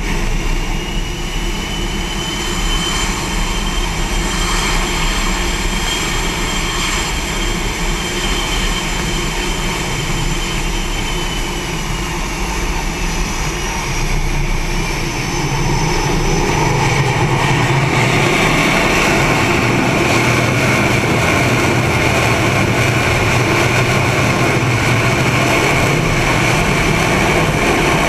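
Aircraft turbine engines running on a carrier flight deck: a steady, loud rush with a high whine that slides slowly in pitch. About 16 seconds in the noise grows louder and fuller.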